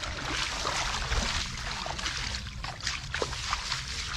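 Hands splashing and sloshing in shallow muddy water, a dense run of short splashes, as they grope through the mud for fish.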